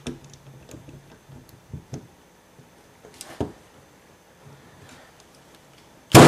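Corded electric brad nailer being set against a hardwood top bar with light clicks and taps, then firing a 1-inch brad with one sharp, loud clack near the end. A duller knock comes about three seconds in.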